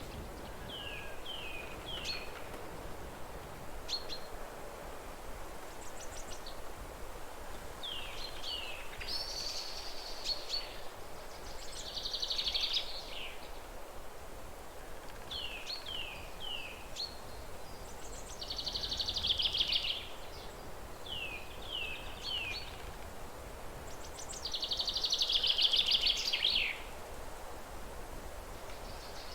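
A songbird singing a repeated phrase: three short, falling whistled notes, then a louder buzzy trill lasting a second or two. The phrase comes back about every six to seven seconds over a steady background hiss.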